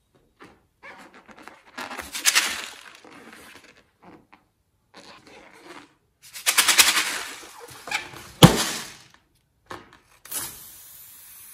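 Fingers squeezing and rubbing a rubber balloon, in bursts of crackly rubbery squeaks, with one sharp knock about eight and a half seconds in. Near the end, scissors start cutting into the balloon's neck.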